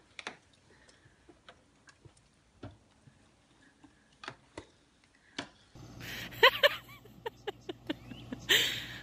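Sparse light clicks and taps of a plastic spoon against a plastic bowl at a baby's high chair. About six seconds in, the sound changes to a steady hum with a few short high, voice-like calls that bend in pitch, and a loud noisy burst near the end.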